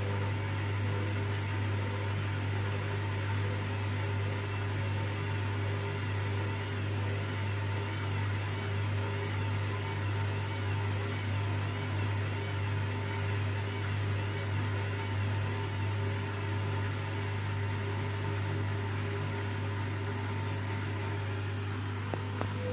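Hoover washing machine motor running with a steady low hum and a faint wavering whine over it, the drum labouring to get up to spin speed.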